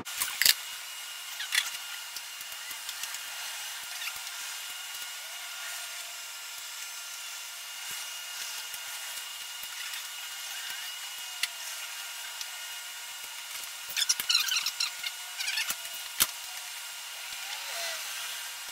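Short scrapes and taps of a hand tool spreading thickened epoxy onto plywood hull-frame edges, a few near the start and a dense run of scraping about three-quarters of the way through, ending in a sharp tap. Under it a steady background hiss with a faint high whine.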